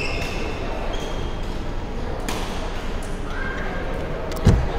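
Badminton hall play: sharp racket hits on shuttlecocks and short high sneaker squeaks on the wooden court floor over a steady hall din, with one loud low thud near the end.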